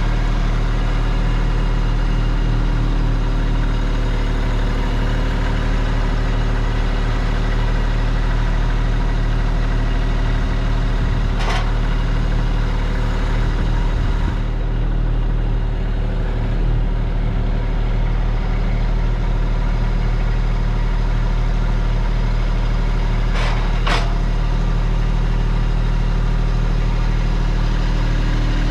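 Kubota LX2610 compact tractor's three-cylinder diesel engine running steadily at an unchanging speed, with two brief sharp clicks partway through.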